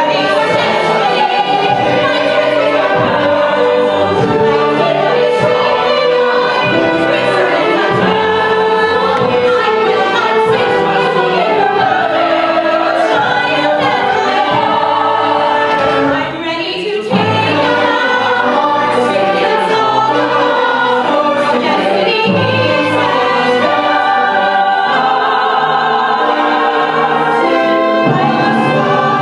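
A musical-theatre ensemble singing together in chorus over instrumental accompaniment, with a brief drop in level about sixteen seconds in.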